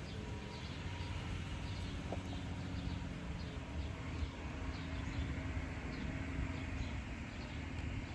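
Garbage truck engine running, a steady low noise throughout.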